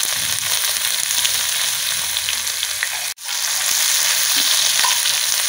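Chopped onions sizzling in hot oil on a large tawa, stirred with a metal spatula, a steady frying hiss. The sizzle cuts out for an instant about three seconds in.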